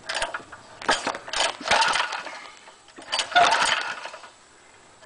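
6.5 hp Lifan GX200-clone engine being pull-started several times, each pull a short burst of cranking with a quiet gap after it. The engine turns over but does not catch and keep running.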